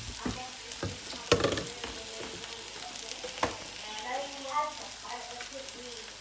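Oil sizzling steadily in a frying pan, broken by a few sharp knocks, the loudest about a second in.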